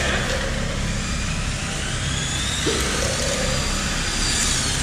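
Tamiya radio-controlled model cars racing past, over a steady rushing noise. Their motors whine and rise in pitch as they speed up, once through the middle and again near the end.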